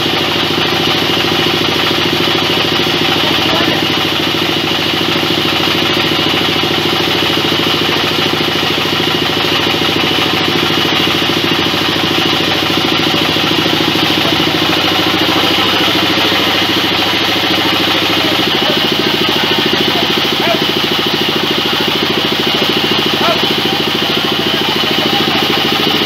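Large belt-driven band saw running steadily while its blade rips lengthwise through a big log, with a continuous machine drone and a high whine from the blade.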